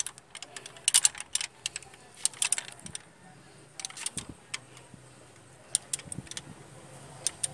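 Scattered metallic clinks and taps of a wrench on the timing-belt end of a Toyota 2C diesel engine as the crankshaft is turned by hand to check the valve timing; the engine is not running.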